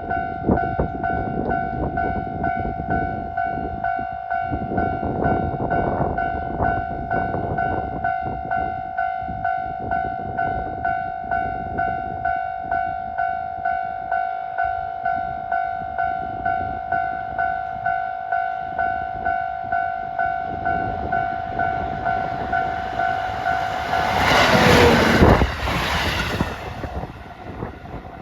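Japanese level-crossing bell ringing with an even, rapid ding-ding beat while a train runs along the rails. About 24 seconds in, a loud rush of passing-train noise swells and drops away about three seconds later.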